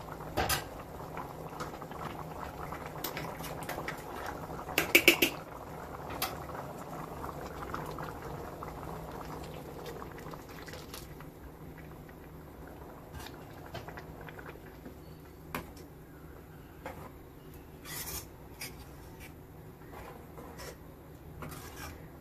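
Chicken gravy bubbling in a pan, with a metal ladle clinking and scraping against the pan; a quick cluster of metal clinks about five seconds in is the loudest. The bubbling fades after about ten seconds as fresh masala paste is stirred in.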